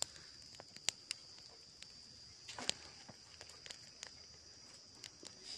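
Scattered small clicks and crackles of hands peeling scalded skin off chicken feet, with the loudest cluster of clicks a little past halfway. A faint steady high-pitched hum carries on underneath.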